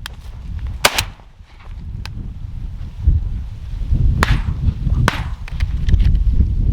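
Several shotgun shots at flying doves, the loudest about a second in and two more a little under a second apart around four and five seconds in, with fainter cracks between. Wind buffets the microphone underneath.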